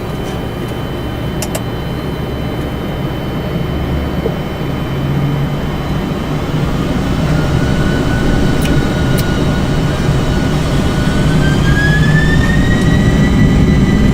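Boeing 747-400 jet engines heard from the cockpit as thrust comes up for the takeoff roll: a low rumble that grows steadily louder, with a whine that appears about halfway through and rises in pitch. A few faint clicks.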